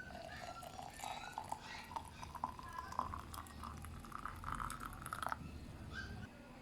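Freshly boiled water poured into a glass jar of herbs and seeds, the pouring note rising steadily in pitch as the jar fills. It stops about five seconds in.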